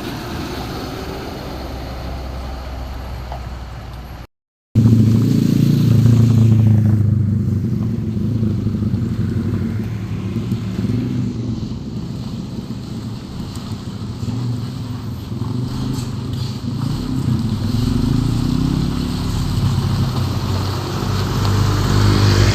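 Steady road-traffic noise, then after a sudden break about four seconds in, a heavy truck's diesel engine running loud and close with a deep, steady drone that wavers slightly in pitch.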